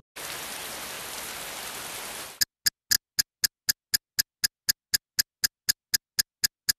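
A steady hiss of static-like noise that cuts off sharply about two and a half seconds in, followed by a run of sharp, evenly spaced clicks, about four a second, with silence between them.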